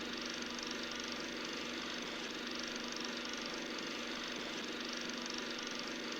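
Film projector running steadily, an even mechanical whirr with no change in pace.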